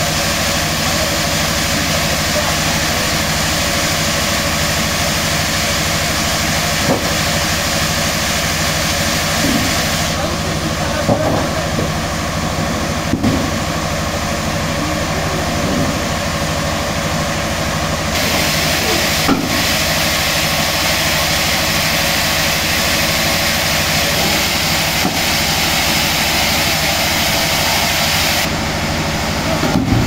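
Steady, loud drone of running sawmill machinery, with a few short knocks as wooden slabs are handled.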